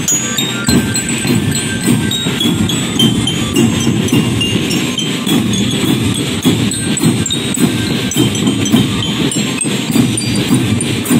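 Marching drum band playing: snare and tenor drums beating a fast, steady rhythm while bell lyras ring out a high melody over it.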